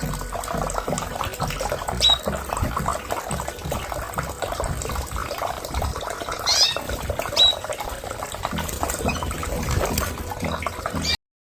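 Canaries giving short high chirps, a few seconds apart, over a continuous scratchy rustling.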